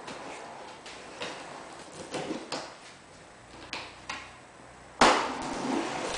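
Cardboard packaging box being handled and opened: a series of light knocks, scrapes and rustles, then a loud thump or rip about five seconds in that trails off.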